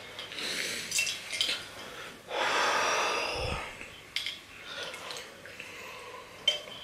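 A person exhaling heavily, then sipping a drink through a straw from a glass mason jar, with a few small clicks and knocks as the jar is handled.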